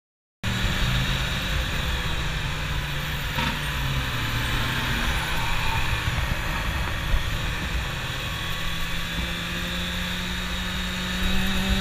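Kawasaki Ninja ZX-6R 636 motorcycle's inline-four engine running steadily under way, with wind rushing over the helmet-camera microphone. The sound cuts in abruptly about half a second in.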